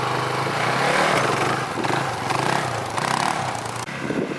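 Polaris Predator 500 quad's single-cylinder four-stroke engine running under way during a ride, its pitch wavering a little as the throttle changes.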